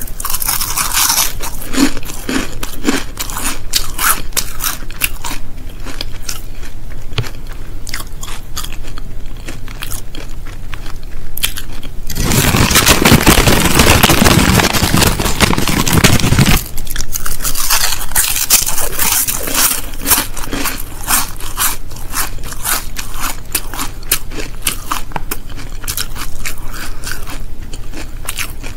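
Close-miked crunching of crisps being bitten and chewed, a rapid run of sharp crackles. About twelve seconds in, a loud, continuous crinkling of the crisp packet takes over for about four seconds, then the crunching resumes.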